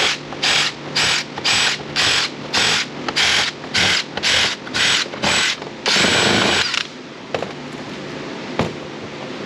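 Power screwdriver run in about a dozen short, quick bursts, then one longer run, backing out the screws that hold a Roomba's top plastic panel.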